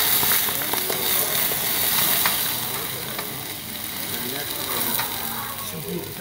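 Hot oil sizzling hard in a frying pan of potatoes on a portable gas stove as the pan flares up in flames. The sizzle is loudest for the first two seconds or so, then gradually dies down.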